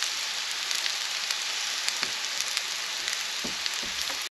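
Diced potatoes and sausage links sizzling steadily in a cast iron skillet, a constant hiss with small scattered pops and crackles.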